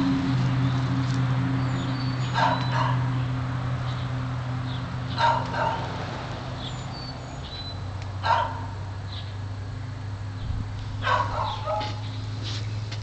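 A dog barking in short single barks and quick runs of two or three, every few seconds, over a steady low hum.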